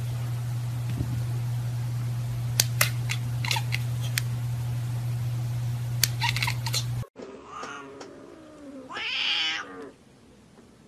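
A steady low hum with scattered sharp clicks, then an abrupt change to a cat meowing in a drawn-out, wavering yowl, loudest near the end.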